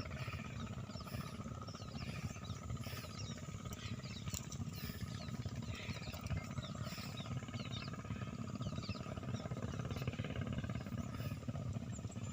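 Wind rumbling on the microphone, with many short, high bird chirps scattered throughout.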